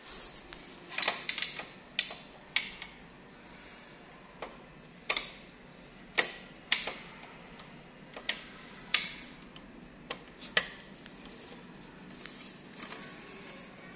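A series of sharp, irregularly spaced clicks and taps, about fifteen in all, most of them in the first ten seconds, each with a short ring, over a faint steady background hum.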